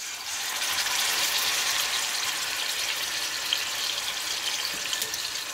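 Seasoned chicken drumsticks and thighs sizzling and crackling in hot canola oil as they sear. The sizzle swells in the first second as pieces are laid into the oil with tongs, then holds steady.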